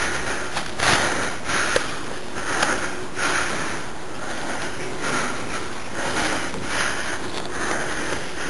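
A person breathing hard and fast, a steady run of breaths about one every half second to second.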